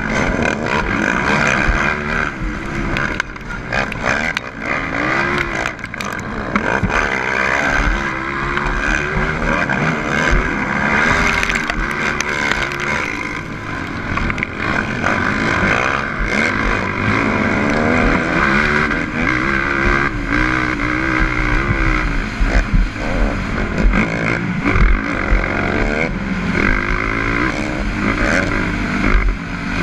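Onboard sound of a 450cc single-cylinder four-stroke race quad's engine revving hard, its pitch climbing and dropping over and over as it accelerates, shifts and backs off, with scattered knocks as the machine hits bumps on the dirt track.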